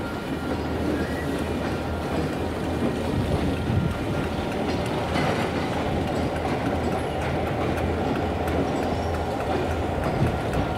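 Ontario Southland Railway freight train rolling along with a steady rumble of wheels on rail and a low, even drone underneath, punctuated by faint clicks of wheels over rail joints.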